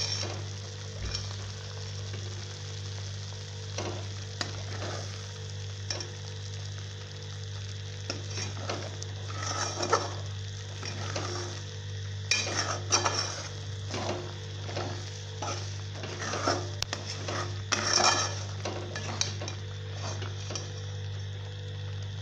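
Steel spatula stirring and scraping thick masala gravy in a steel pot as it fries with a faint sizzle, the strokes irregular and coming in bursts, busiest in the second half. A low steady hum runs underneath.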